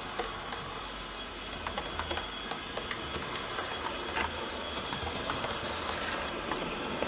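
OO gauge model Class 170 diesel multiple unit running along the layout: a steady low rumble with irregular sharp clicks from its wheels over rail joints and pointwork.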